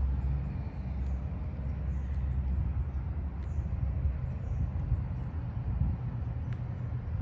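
Low, steady rumble of a vehicle's engine running.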